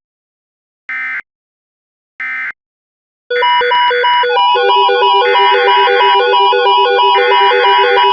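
Two short bursts of EAS digital data tones (the SAME end-of-message code) about a second apart, following the tail of a third just as it ends. Then, a little over three seconds in, electronic synth music with quick repeating notes starts.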